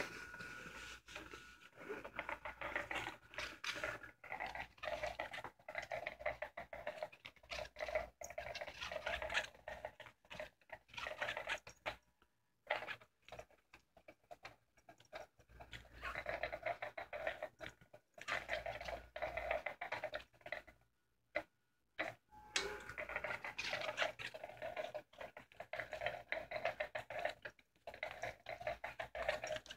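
Motor of an electronic cat toy running under its fabric cover, a rapid whirring clatter that starts abruptly, stops dead for a moment several times and starts up again.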